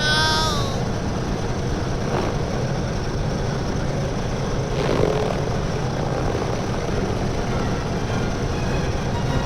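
A steady, low, engine-like drone, with a brief rising-then-falling pitched squeal right at the start and a short louder sound about five seconds in.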